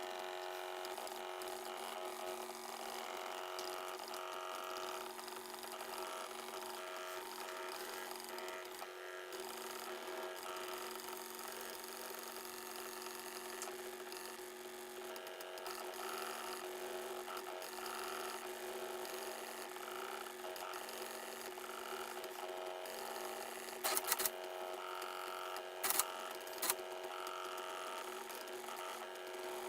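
Stepper motors of a small Arduino-driven CNC drawing machine whining steadily as it draws, with a few sharp clicks near the end.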